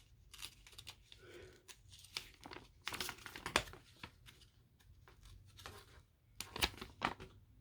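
Paper and cardboard packaging rustling and crinkling as the instruction booklet and toy box are handled, with scattered light taps and clicks.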